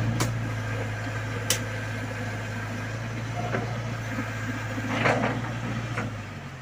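Backhoe loader's diesel engine running with a steady low hum, with a few sharp knocks from the machine as it works; the hum drops away near the end.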